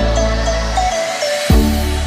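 Background electronic music: a stepping synth melody over sustained bass notes, with a drum hit about one and a half seconds in.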